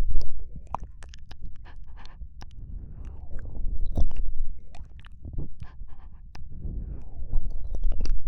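Close-miked ASMR mouth sounds: many wet clicks and smacks of lips and tongue, over low rumbling swells about every four seconds from soft breathing on the microphone.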